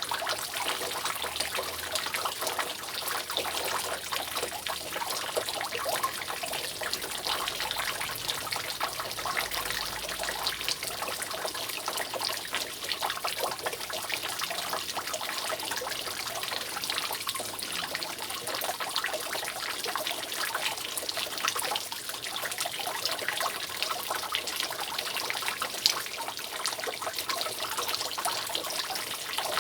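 Rainwater dripping continuously from a roof: a dense, steady run of many small drips and trickles.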